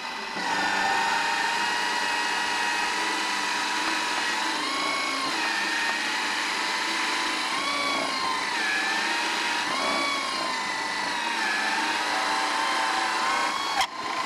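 Bosch pillar drill running a plug cutter down into an oak offcut: a steady motor whine whose pitch sags and recovers a few times as the cutter bites, cutting off shortly before the end.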